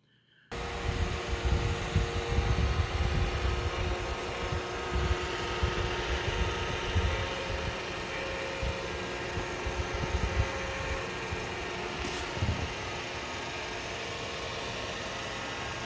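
Roomba i7+ robot vacuum system running: a steady motor whir with airflow noise that starts abruptly, with a rumbling low end that fluctuates for the first few seconds and then settles.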